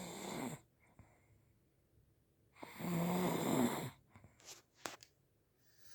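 A man snoring: a snore fades out in the first half second, then a louder one comes about two and a half seconds in and lasts over a second, a low buzzing tone under a noisy breath. A few faint clicks follow it.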